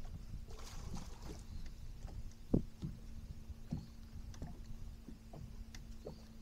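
Water lapping and slapping against a Skeeter bass boat's hull under a steady low hum, muffled, with scattered light knocks on the boat and one sharper knock about two and a half seconds in.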